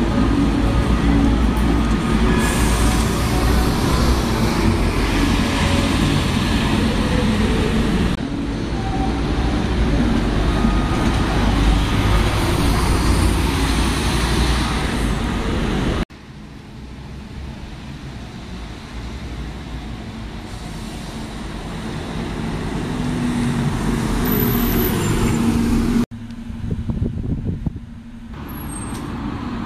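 Double-decker bus engines running and pulling past amid street traffic, in several short clips with abrupt changes between them. In one clip a bus is heard approaching, growing louder over several seconds.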